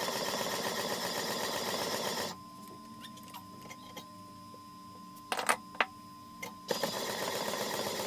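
Motor-driven homemade power hacksaw rasping back and forth through the rotor of an e-rickshaw motor held in a vise. It stops a little over two seconds in, a few light knocks follow, and it starts cutting again near the end.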